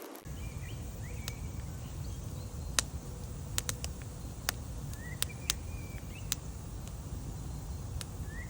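Wood campfire crackling with sparse sharp pops, over a steady low rumble. Birds give a few short chirps.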